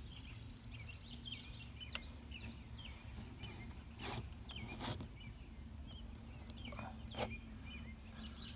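Small birds chirping over and over, with four short scrapes or clicks from a putty knife blade trimming excess putty along a vent flange on metal RV siding. A low steady hum runs underneath.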